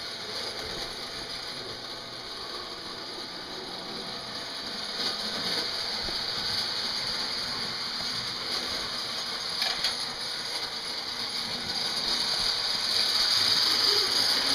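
Lionel 265E Commodore Vanderbilt O-gauge locomotive running on the layout track, a steady rattling gear-and-motor noise that grows louder near the end as the engine and tender pass close by. The motor sounds rough, which the owner puts down to dirty brushes.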